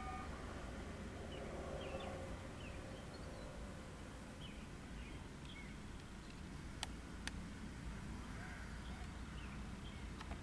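A Thor Guard lightning warning horn's steady tone cuts off right at the start. Then scattered faint bird chirps over a low outdoor rumble, with two sharp clicks close together about seven seconds in.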